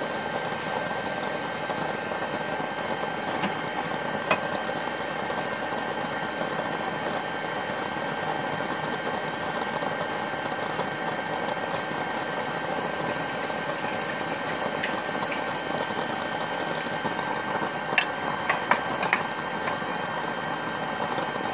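Homemade used-oil stove burner running with a pressurized flame: a steady rushing hiss of burning oil and air, with a thin steady whine underneath. A few sharp crackles come through near the end.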